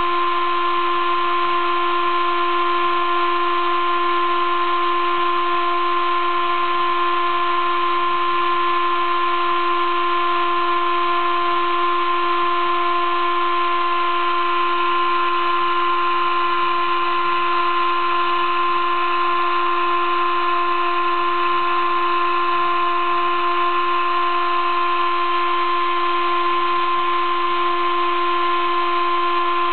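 Sable-2015 desktop CNC mill's spindle whining steadily as a 20-degree V engraving cutter cuts letters into an acrylic plate, with a steady hiss under the whine.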